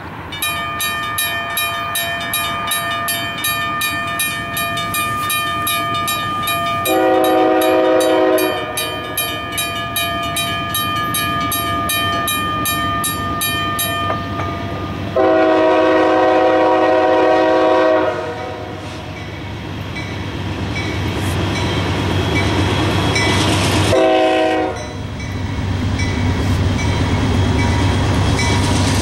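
Diesel freight locomotive's multi-chime air horn sounding the grade-crossing signal, long, long, short, long, as the train approaches, with the rumble of the train growing louder in the second half. A bell rings rapidly through the first half, until the second long blast begins.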